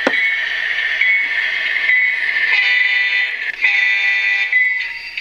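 HO scale GEVO model's Digitrax DCC sound decoder playing a locomotive bell that rings steadily, struck about twice a second. There is a sharp click at the start, and in the middle comes a horn chord sounded twice, about a second each time.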